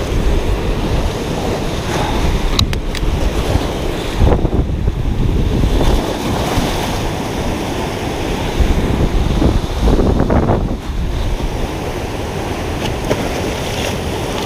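High, fast river water rushing and churning through an open dam's outflow: a loud, steady rush.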